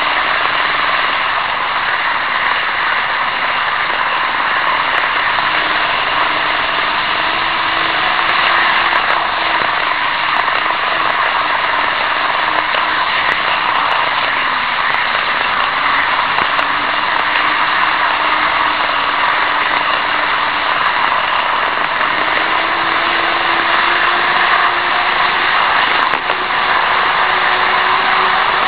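N-gauge model train running noise picked up by a tiny camera riding on a wagon in a moving train. It is a steady, loud whirring rattle of small wheels on rails, under a small motor's hum that wavers slowly up and down in pitch.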